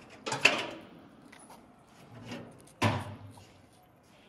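Two sudden loud knocks, about two and a half seconds apart, each dying away quickly, with faint small ticks between them.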